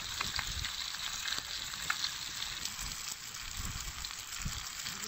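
Oil sizzling and crackling under marinated fish slices shallow-frying on an iron tawa, a steady hiss with small pops throughout.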